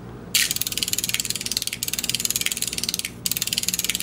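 Electromagnetic flip-segment seven-segment displays of a flip digit clock clicking rapidly as their segments flip over during the clock's power-up sequence. The clicks come in a fast rattling run that starts shortly after the beginning and breaks off briefly twice.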